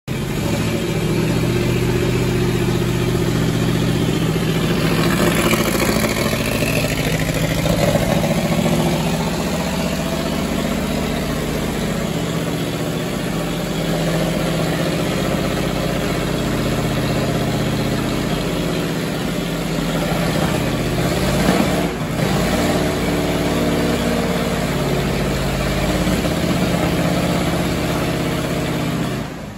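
1929 Graham-Paige racer's straight-eight engine idling at around 1000 rpm, running on old petrol after many months laid up.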